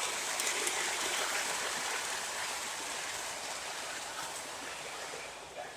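O gauge Lionel model train making a steady hiss that fades gradually and drops away at the end.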